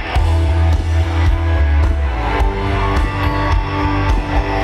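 Live country-rock band playing loud, with electric guitar and drum kit over a heavy bass, recorded from far back in a concert crowd.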